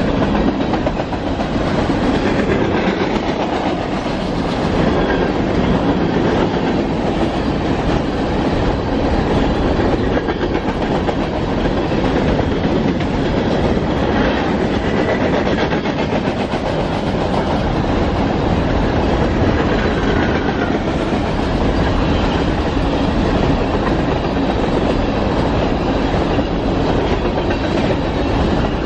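Covered hopper cars of a Union Pacific grain train rolling steadily past, with loud, continuous wheel-on-rail noise.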